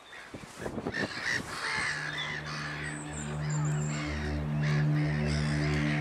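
A flock of gulls calling, many short overlapping calls. A steady low musical drone comes in underneath about two seconds in.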